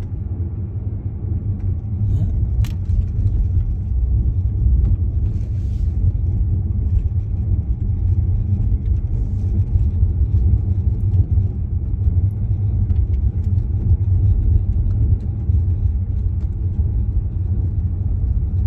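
Steady low rumble of a car being driven slowly, heard from inside the cabin: engine and tyre noise, with a single sharp click about three seconds in.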